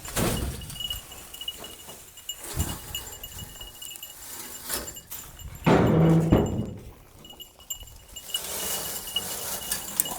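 A Nigerian dwarf goat bleats loudly once, about six seconds in, amid scattered knocks and shuffling in the pen.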